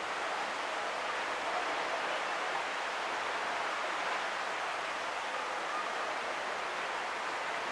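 Distant surf breaking on a sandy beach, heard as a steady, even wash of noise with no single wave standing out.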